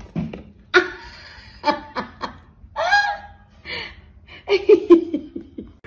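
A person laughing in several short bursts.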